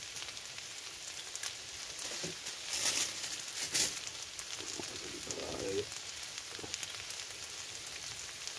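Diced potato, shallots, chilli and tomato sizzling in a hot frying pan, a steady frying hiss with a louder burst of crackling sizzle about three to four seconds in.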